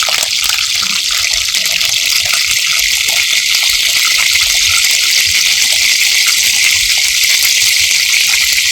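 Curry leaves and green chillies sizzling and spluttering in hot oil in a kadai: a steady dense hiss with many small crackles.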